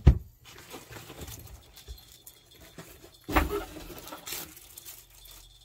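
Handling and rustling of a padded nylon helmet carry bag, with a sharp low thump at the start and a louder burst of rustling about three seconds in.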